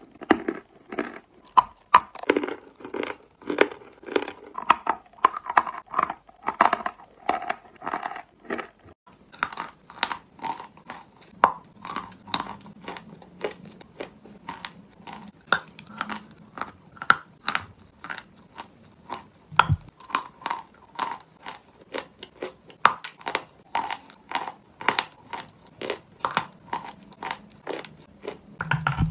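Close-miked biting and chewing of hard lumps of eating chalk, a chunk later coated in brown clay: a quick, uneven run of sharp crunches with softer grinding chews between them.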